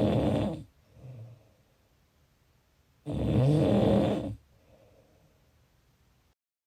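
Snoring in a steady rhythm. One loud snore ends about half a second in, and a second loud snore starts about three seconds in and lasts over a second. Each is followed by a soft breath out. The sound cuts out completely for a moment near the end.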